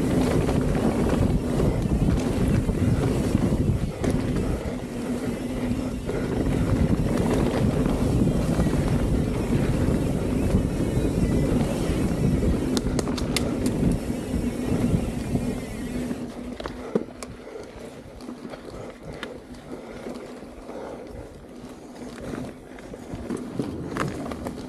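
Mountain bike riding down a dirt singletrack: knobby tyres rolling over hardpack, the bike rattling over bumps and wind rushing over the camera, with a steady hum under it. Occasional sharp ticks come through, and about two-thirds of the way in the whole sound drops and gets quieter.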